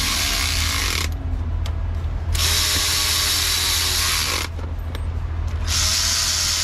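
Cordless electric ratchet running valve cover bolts down on a 6.0 L V8, in three whirring bursts with short pauses between. The bolts are being snugged, to be torqued by hand later.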